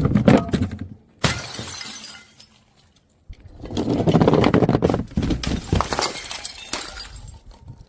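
Glass bottles shattering and being crushed: a sudden shatter about a second in with a bright, scattering tail, then after a short pause a long stretch of dense crunching and crackling of broken glass.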